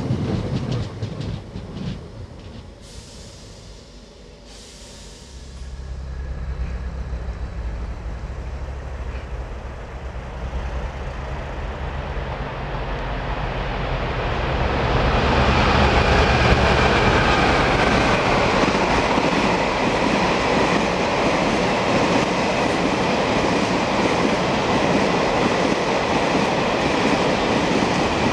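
A Thameslink electric multiple unit running past on the rails at first, then fading. After a lull, a diesel freight locomotive's engine drones steadily as it approaches, and from about halfway the long train of tank wagons rolls past with a loud, steady noise of wheels on rails.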